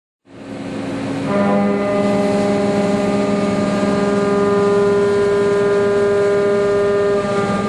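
Walter BLAXX indexable face-milling cutter machining a metal block, a steady cutting whine with several held tones. It builds up over the first second, runs evenly, and eases off near the end.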